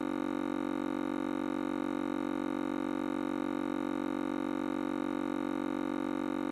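A steady electronic drone of several held tones, the lowest loudest, unchanging throughout with no beat or break.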